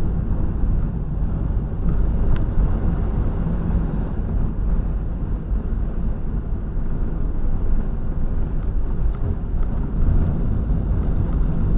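Steady low engine and tyre noise inside the cab of a van driving along a road.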